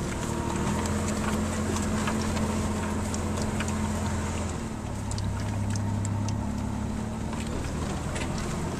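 Mitsubishi Montero's engine running as the SUV drives off-road: a steady low drone whose pitch shifts about halfway through, with light clicks and rattles over it.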